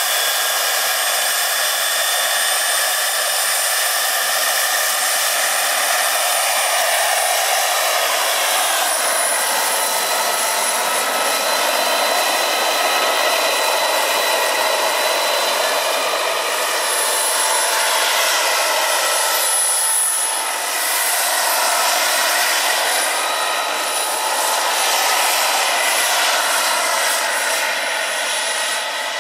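Jakadofsky Pro 6000 gas turbine of a large model Gazelle helicopter running with a steady high whine. From about a third of the way in, its tones waver up and down as the helicopter flies.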